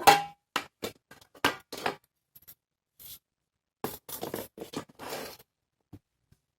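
Small metal parts being handled: a sharp metallic clink with a brief ring, several more clicks and knocks, then a stretch of metal scraping and rubbing.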